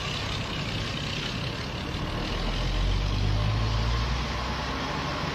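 Tank engine rumbling with a steady hiss above it. The low engine note swells louder about halfway through, then eases off.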